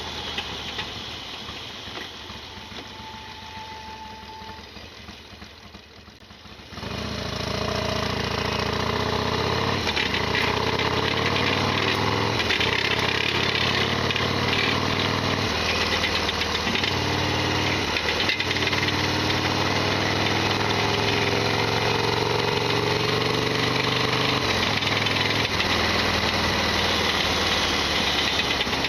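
Harley-Davidson Sportster XL1200R's air-cooled V-twin engine easing off for several seconds, then picking up sharply about seven seconds in and pulling hard, its pitch stepping through the rest of the ride. It runs with the loud rattling mechanical noise its owner complains of.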